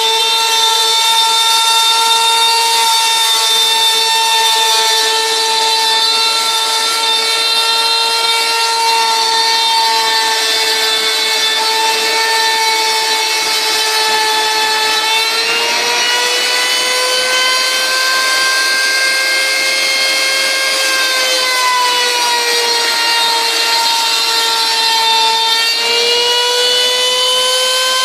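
Router spindle on a homebuilt CNC router running at high speed while milling particleboard: a steady high whine that climbs in pitch about halfway through, sags a few seconds before the end, then climbs again as the cutting load changes.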